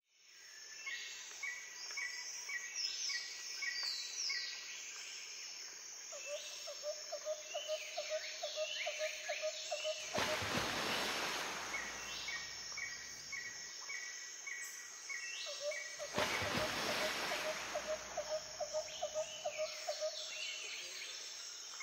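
Birds calling and chirping: repeated high, descending chirps and a quick row of short notes, joined by a pulsing, insect-like trill about six seconds in and again around fifteen seconds. Two brief rushes of hiss come around ten and sixteen seconds.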